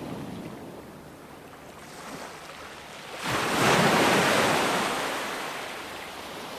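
Ocean waves breaking. A softer wash fades at first, then about three seconds in a wave crashes suddenly and its surf slowly dies away.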